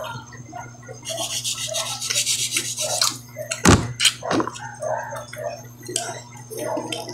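Eating at a table: scratchy scraping and rubbing, with two sharp knocks about halfway through, over a steady low hum.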